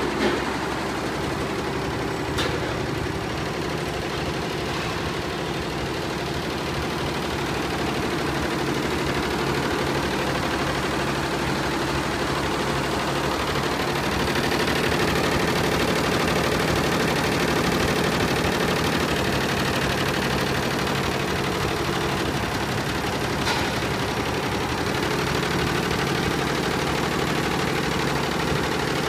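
GEMSY GEM916F multi-head embroidery machine, sixteen heads with nine needles each, running steadily with a dense mechanical chatter, and a brief sharp click twice.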